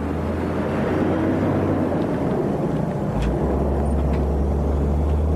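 Heavy road-train truck running, a steady low engine drone with road noise.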